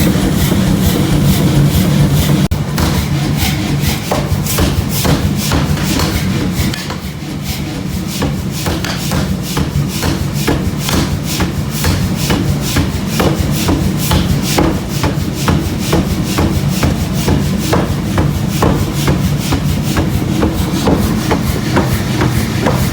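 Steel being struck with quick, repeated hammer blows over a steady machine hum, as the excavator teeth are forged and worked.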